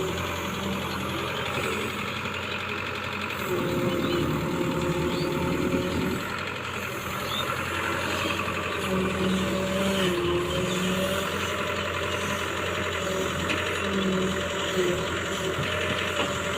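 Large excavator's diesel engine running steadily while digging, with a whine over it that wavers up and down.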